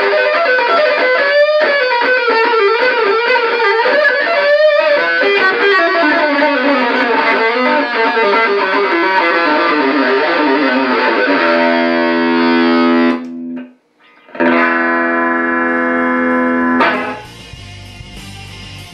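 Electric guitar played through a Muff Fuzz op-amp fuzz pedal, giving a fuzzy distorted tone. A lead line with bent notes runs into a descending run, then two long sustained notes, each cut off abruptly, the second about two seconds before the end.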